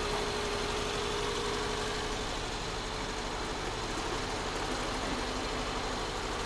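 A Honda City Turbo II's 1.2-litre turbocharged four-cylinder engine idling steadily, heard from right over the open engine bay.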